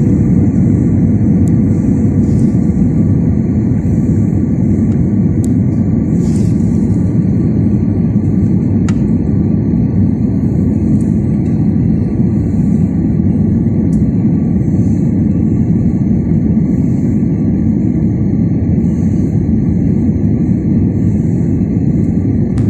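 Jet airliner cabin noise heard from a seat beside the wing during the landing approach: a loud, steady, low rumble of engines and rushing air.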